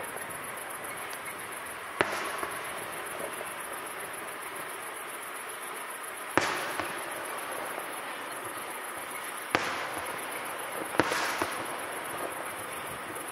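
Aerial firework shells bursting: four sharp bangs a few seconds apart, the first about two seconds in, the last two close together near the end.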